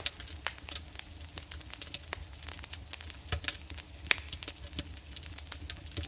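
Fire burning hard: dense, irregular crackles and pops over a steady low rumble of flame.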